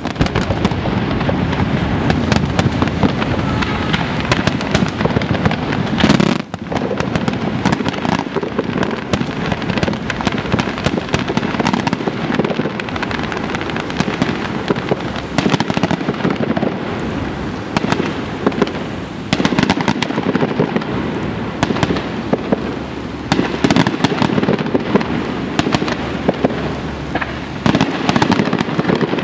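Aerial fireworks display: a dense, continuous barrage of shell bursts, bangs and crackling. One loud burst about six seconds in is followed by a brief lull.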